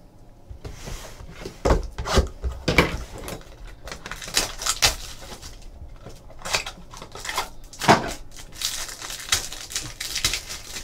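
Trading cards and clear plastic packaging being handled by hand: repeated crinkling and tearing of plastic wrap, with scattered taps and clicks from the cards and packaging.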